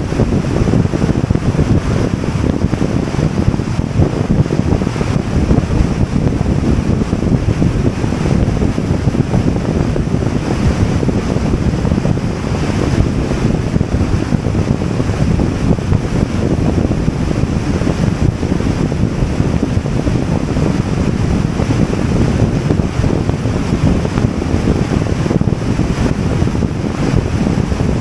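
Wind buffeting the microphone of a car driving along a highway, with road noise underneath: a steady, loud, low rumble with no breaks.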